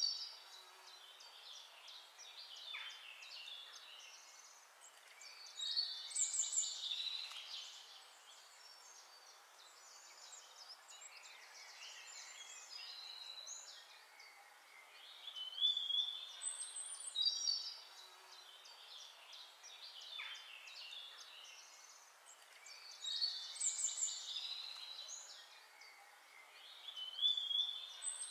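Birds chirping and singing in high, quick phrases that come in clusters every several seconds, over a faint steady hiss.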